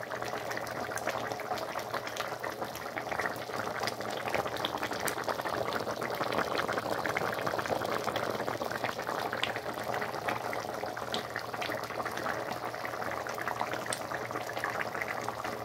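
Curry boiling in a cooking pan: a steady bubbling with many small pops.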